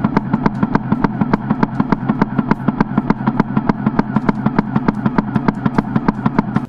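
Airsoft electric rifle (AEG) firing one long full-auto burst: an even train of sharp shots at about seven a second, each with a short mechanical whirr, stopping abruptly near the end.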